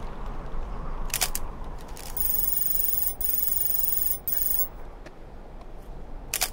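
Electronic computer-readout sound effect: a buzzy, many-toned digital tone lasting about two and a half seconds, broken off briefly twice. Short electronic swishes come about a second in and at the end, over a steady low background rumble.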